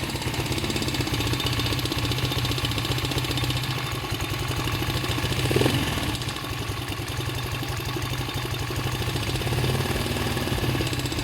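Pit bike's single-cylinder engine idling with a rapid, even beat, briefly louder about halfway through; the engine has a knock that needs fixing.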